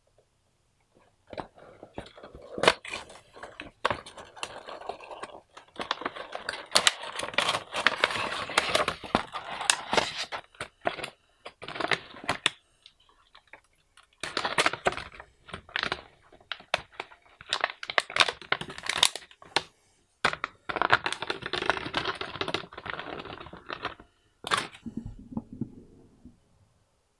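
Unboxing a Funko Pop! vinyl figure: a cardboard box is handled and opened, then a clear plastic packaging tray crinkles and rustles as the figure and its small dog are taken out. Stretches of rustling are broken by many sharp clicks and taps, with short pauses between.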